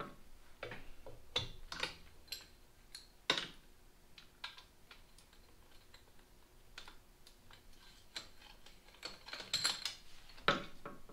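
Irregular light metallic clicks and taps of hand tools on a motorcycle's swingarm pivot while its pinch bolt is loosened. There is a quicker run of clicks near the end.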